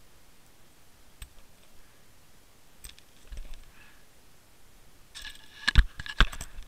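Sharp clicks and knocks picked up underwater as a Water Wolf camera on a fishing line bumps against the rocky, kelp-covered bottom: a few single clicks and a dull thump, then a loud cluster of knocks near the end.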